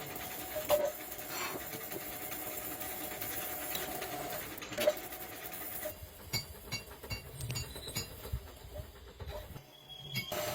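Workshop machinery running with a steady hum and a few sharp metal knocks. About six seconds in the running noise drops away, leaving scattered clicks and ticks.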